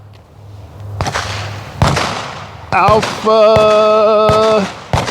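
Gunshots from other shooters on the range: several separate sharp reports about a second apart, each with a short trailing echo.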